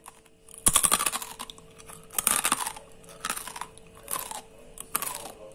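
Crispy sweet chilli-seasoned air-fried fusilli pasta chips being eaten: a sharp crackling crunch about a second in, then a crunch roughly every second as they are chewed.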